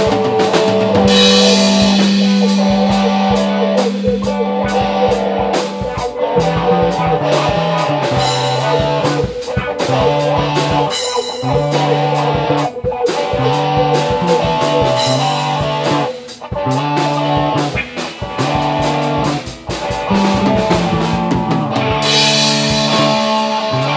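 Instrumental stoner-rock jam by a band of two electric guitars, bass and drum kit, with no vocals. A low note is held for the first six seconds or so, then a repeating riff takes over, with the drums keeping time throughout.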